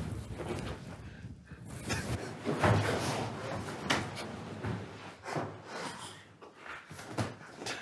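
Inflatable sumo suits bumping and rustling as two wrestlers grapple and one goes down onto the padded mat, giving several dull thumps, the loudest about three seconds in.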